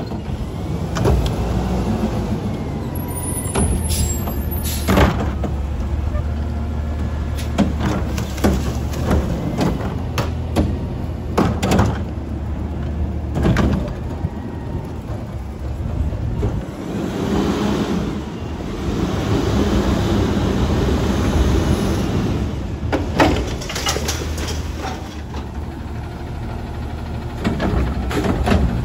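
Autocar ACX garbage truck with a Curotto Can arm. Its engine runs steadily and rises in level for several seconds about two-thirds of the way through. Repeated sharp metal clanks and bangs come from the can and arm as the truck works the carts.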